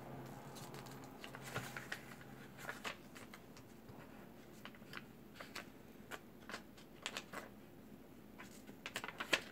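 Ballpoint pen writing on a small notebook's paper: faint, irregular short scratches and taps, with a quick cluster of strokes near the end.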